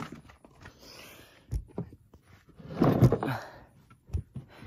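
Handling noise from a phone being set down: a few separate knocks and thumps, with a louder scuffing rub about three seconds in.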